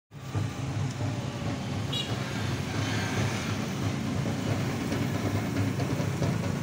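Small motorcycle and scooter engines, with a pickup truck's engine, running at low speed as a line of them rides past, making a steady low drone with road noise.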